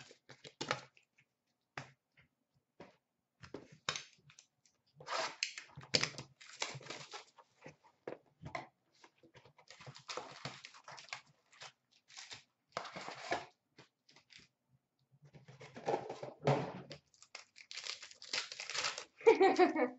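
A sealed trading-card box and its packs being handled and torn open: irregular tearing, crinkling and rustling of cardboard and wrappers in short bursts.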